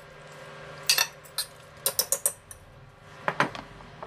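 Steel ladle clinking and scraping against the pressure cooker pot as the keema and potatoes are stirred, in several short clusters of sharp clicks, with a quick run of four about two seconds in.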